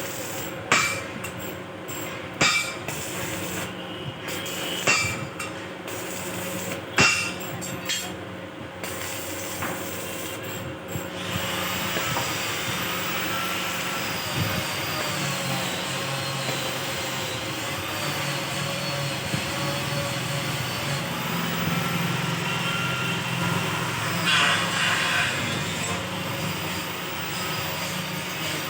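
Hammer blows on steel, sharp separate clanks about every second or so, stopping about a third of the way in. A steady mechanical noise then runs to the end, with one brief louder burst near the end.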